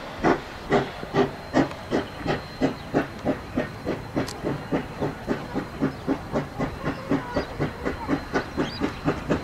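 Queensland Rail C17 class steam locomotive No. 974 working under steam: exhaust chuffs in an even rhythm that quickens from about two to about four beats a second as it gathers speed, over a steady hiss of steam.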